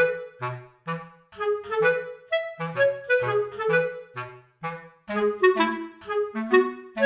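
Background music: a bouncy tune of short, quickly fading notes, several a second, over a bass line, with a clarinet-like instrument.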